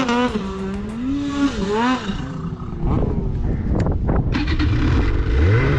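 Two-stroke snowmobile engines idling and blipping the throttle, the pitch wavering up and down. Near the end one engine revs up sharply.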